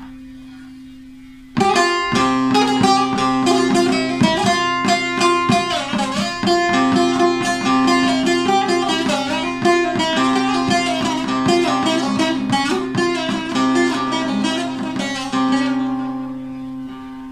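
Deep-toned (davudi) Turkish bağlama playing a Barak havası folk melody: fast plucked notes over a steady open-string drone. The playing starts about a second and a half in, after the last notes ring away, and fades out near the end.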